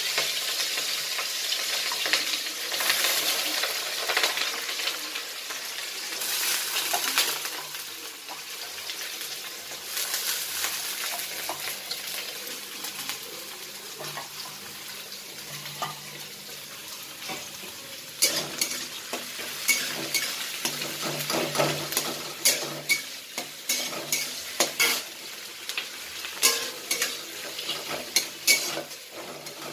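Sliced onions frying in hot oil in an aluminium kadai. A steady sizzle is loudest at first and settles down; from a little past halfway a metal spatula stirs them, with many sharp scrapes and taps against the pan.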